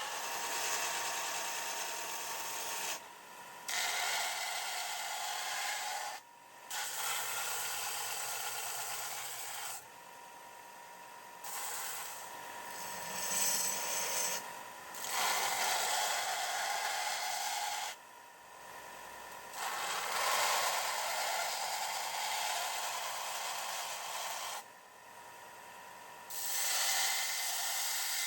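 Old file steel being ground in repeated passes of two to three seconds, with short breaks between them, giving a harsh scraping rasp.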